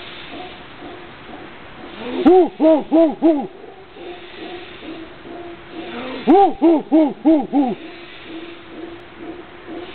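A person's voice hooting in imitation of howler monkeys, in two rhythmic bouts: four quick rising-and-falling hoots a couple of seconds in, then five more about four seconds later.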